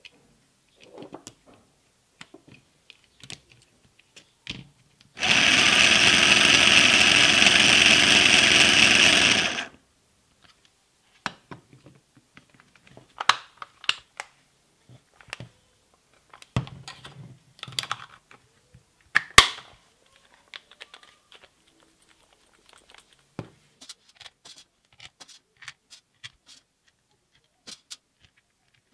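Makita 6176D cordless drill's motor and gearbox running steadily for about four and a half seconds on its newly wired lithium-ion pack. Scattered clicks and knocks of plastic housing parts and screws being handled come before and after the run.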